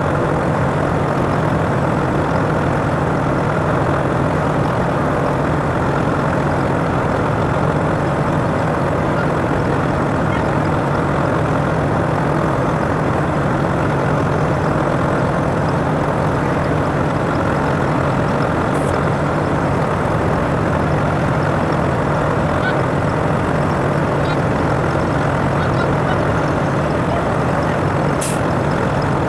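Heavy engine running steadily at constant speed, with a steady low hum, and a couple of faint clicks in the second half.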